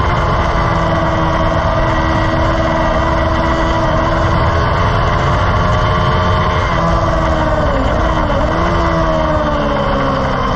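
Engine running hard at steady high revs, heard onboard at speed over a dense rushing noise. About eight seconds in the pitch dips sharply and comes back, then falls away slowly near the end.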